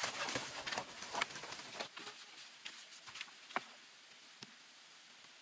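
Irregular light clicks and rustles, thinning out after about three seconds.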